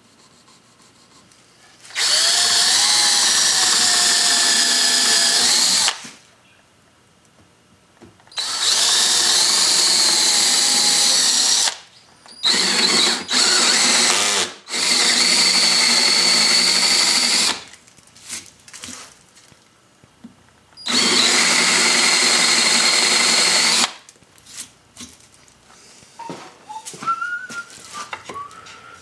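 DeWalt cordless drill boring screw and dowel holes into pine stool legs. It runs at a steady speed in about five bursts of a few seconds each. Near the end come light knocks and short squeaks as a dowel is worked into a hole.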